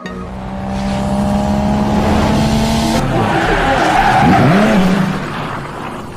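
Car engine running hard with tyres skidding and squealing. It builds to its loudest a little past halfway, with a swooping dip and rise in pitch, then fades out near the end.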